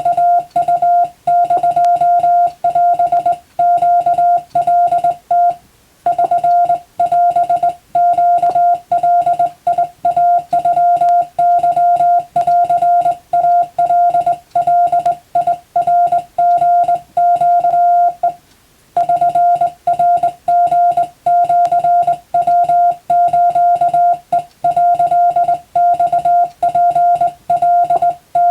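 Morse code (CW) practice tone: a single steady beep keyed on and off in rapid dots and dashes, sending Japanese wabun telegram practice text. Two short breaks come about 6 seconds and 18 seconds in.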